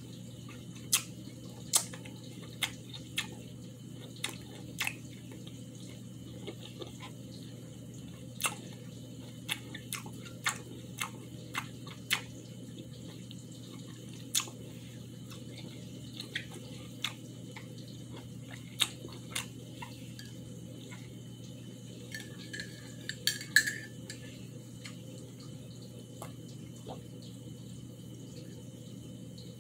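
Wet smacking and clicking mouth sounds of someone chewing juicy ripe cantaloupe, short irregular smacks every second or so with a louder cluster about two-thirds of the way in, over a steady low hum.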